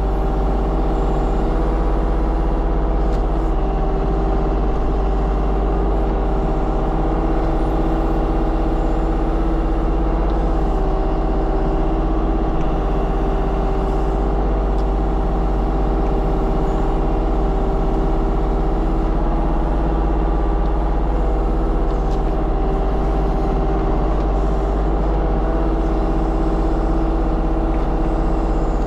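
Diesel engine of a compact construction machine running steadily under working load, with an even, unchanging note.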